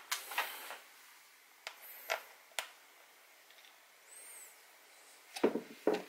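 Scattered small clicks and rustling from handling small tools and parts while searching for a screw, with a couple of heavier knocks near the end.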